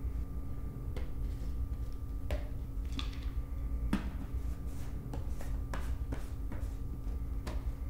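Plastic supplement tubs and their lids handled on a kitchen counter: scattered light clicks and knocks, the sharpest about four seconds in, over a steady low hum.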